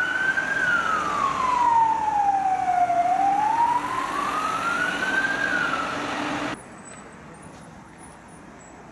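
Vehicle siren wailing, its pitch sliding slowly up and down about every five seconds. It cuts off abruptly about six and a half seconds in, leaving faint traffic noise.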